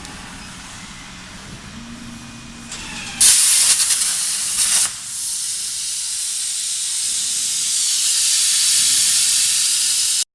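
CNC plasma cutting machine with a Hypertherm 125 A plasma source, its torch firing. After a low steady machine noise, a sudden loud hiss starts about three seconds in. It eases a little after about two seconds into a steady hiss of the plasma arc and air jet cutting metal.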